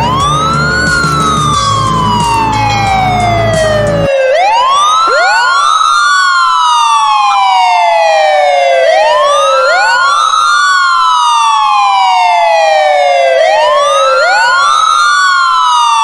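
Ambulance siren sound effect in a slow wail: each cycle a quick rise in pitch, then a long slow fall, repeating about every four and a half seconds. From about four seconds in, two wails overlap slightly out of step. Under the first four seconds is a low rumble that cuts off abruptly.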